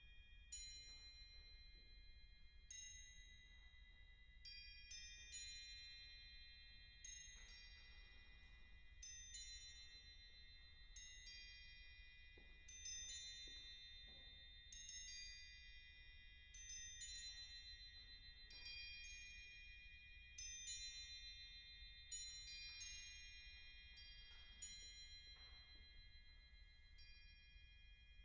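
Crotales struck one note at a time, irregularly, every one to two seconds. Each gives a quiet, high, bright bell tone that rings on and overlaps the next, like slow drops of rain.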